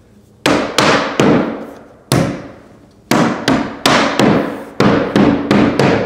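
Wooden slats being knocked into place on their hidden Tenso connectors on a slat wall. About a dozen sharp knocks come in short runs, each followed by a short echo.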